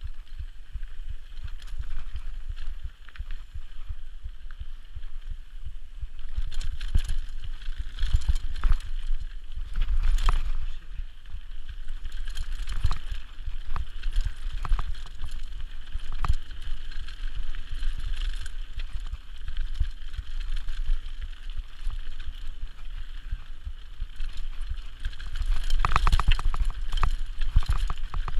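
Mountain bike descending a dirt trail, heard from a rider-worn camera: wind rumbling on the microphone, tyres on dirt, and frequent clicks and rattles from the bike over bumps. The rattling comes in heavier bursts over rough stretches, heaviest near the end.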